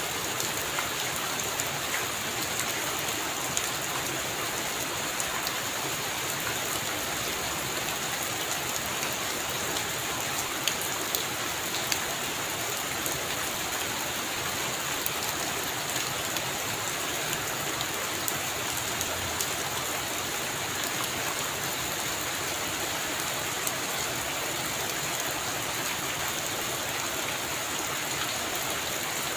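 Heavy rain falling steadily, a dense even hiss of rain with many single drops ticking sharply through it.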